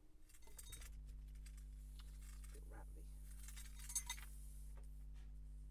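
A steady low electrical hum with a few faint, scattered small clicks and clinks, like light handling between takes.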